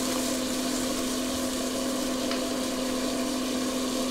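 Steady hum of a running electric motor, with one constant low tone over an even hiss.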